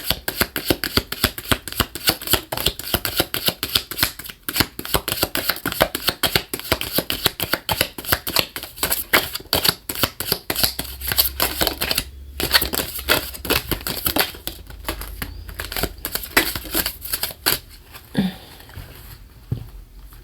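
A deck of fortune-telling cards being shuffled by hand: a fast, dense run of card clicks that stops about three seconds before the end.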